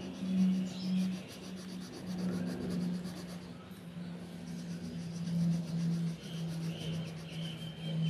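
Coloured pencil shading on handmade paper: quick, rhythmic scratchy strokes with a short pause about halfway, over a low steady hum.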